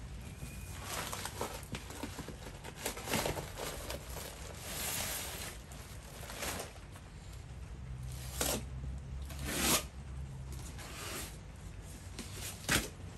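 Thin plastic courier bag rustling, crinkling and tearing in irregular bursts as it is pulled off a cardboard box.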